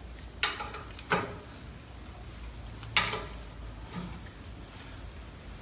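A breaker bar and socket clanking against the brake caliper bracket and rotor: a few sharp metallic clanks, the loudest about three seconds in.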